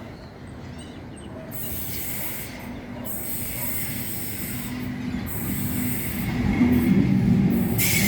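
Electric suburban train approaching and running through the station without stopping. A rumble builds steadily and grows louder near the end, with high wheel-on-rail hiss that comes and goes.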